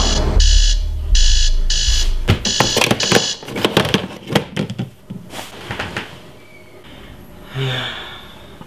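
Digital alarm clock beeping in pulses of about half a second over a low rumble that dies away after two seconds. Then a quick run of clicks and knocks as a hand fumbles at the clock and presses its button to stop it, and a single soft thump near the end.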